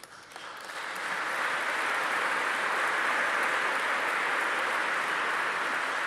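Audience applauding, swelling in within the first second and then holding steady.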